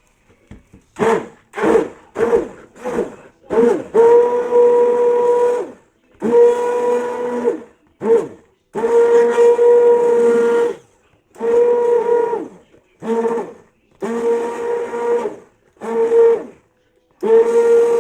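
Handheld stick blender switched on and off, first in quick short pulses, then in runs of one to two seconds, its motor giving a steady whine each time. It is blending the hot oil and water phases together into a conditioner emulsion.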